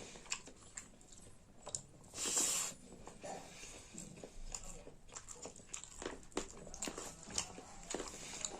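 Close-up eating sounds of rice and saag: chewing with many small wet mouth clicks and smacks, and one brief louder hiss about two seconds in.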